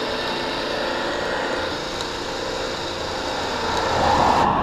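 Electric winch running steadily, reeling in its cable to drag a heavy wood round up into a truck bed. The sound gets a little louder about four seconds in.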